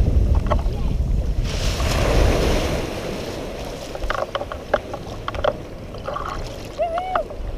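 Wind buffeting the microphone over the wash of small surf, strongest in the first couple of seconds and then easing. Midway there are a few sharp ticks and splashes as a fish is reeled in, and near the end a short voiced exclamation.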